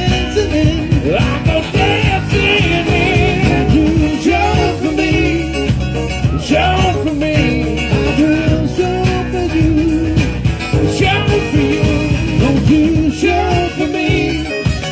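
Live band playing a rock song, loud and continuous, with a steady beat under a wavering high melody line.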